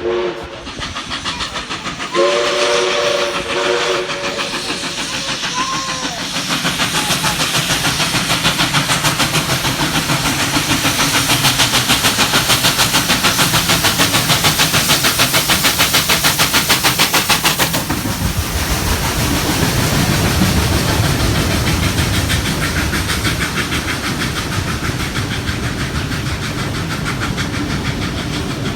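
A train whistle sounds a multi-note chord blast, then steam locomotive 5917 works past with a fast, even chuffing exhaust and loud hiss. About 18 s in, the hiss eases and a lower rumble carries on.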